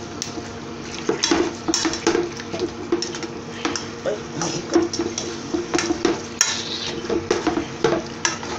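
Spatula stirring chicken pieces in a nonstick pan, with irregular scrapes and knocks against the pan, over a steady low hum.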